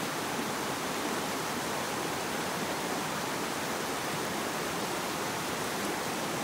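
Flood-swollen stream rushing fast over rocks: a steady, even rush of turbulent water that does not let up.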